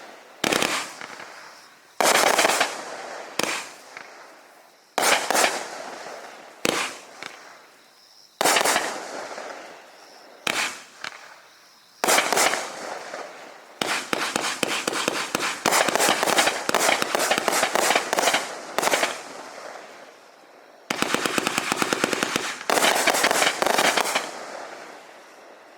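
A 500-gram consumer fireworks cake firing: single shots each with a sharp report and a crackling tail about every one and a half to two seconds, then, from about halfway in, two rapid volleys of many quick cracks that fade out at the end.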